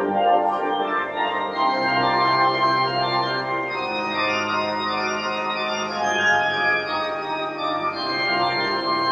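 Organ playing slow, sustained chords over long-held bass notes, the chords changing every second or two.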